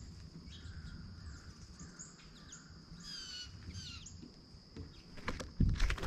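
Wild birds calling, with a few short down-slurred notes about three seconds in over a thin steady high tone. A few loud knocks come near the end.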